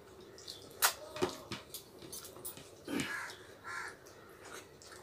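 Sharp mouth clicks and smacks from eating rice and curry by hand, the loudest about a second in, then a bird calling twice near the end.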